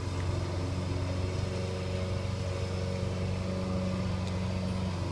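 A steady low machine hum with a few steady higher tones riding on it, with a faint click about four seconds in.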